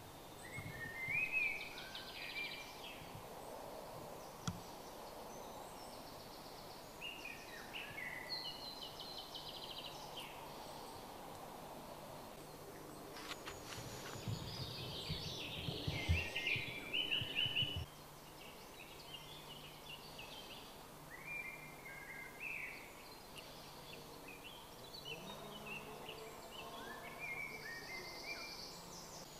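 Several songbirds singing and calling in short phrases throughout, over a faint steady outdoor background. For a few seconds after the halfway point, a louder low rumble with a few knocks sits under the song.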